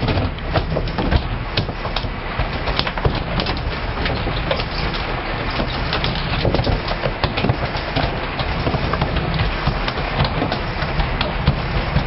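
A sportfishing boat under way: the steady noise of its engine and the rushing water of its wake, with many short irregular knocks and gusts over it.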